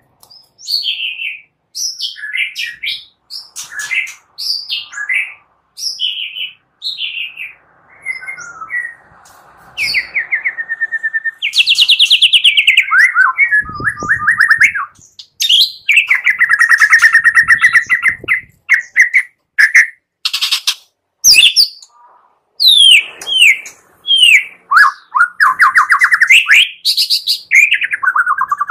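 White-rumped shama (murai batu) singing: a fast string of short, sharp whistled notes, many falling in pitch. Several harsh, rapid rattling phrases (the kretek call) break in among them.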